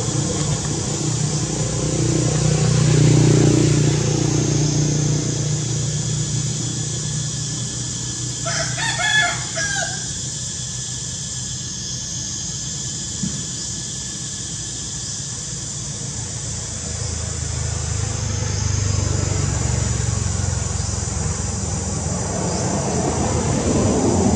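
A rooster crows once, about nine seconds in, a single call lasting about a second and a half, over a steady high insect drone. A low rumble is loudest about three seconds in.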